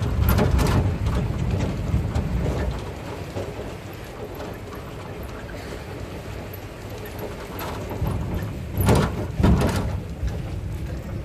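A moving vehicle's engine and road noise, heard from its open rear bed, as a steady low rumble. A few loud knocks come near the start and again about nine seconds in, typical of the truck bed jolting over bumps.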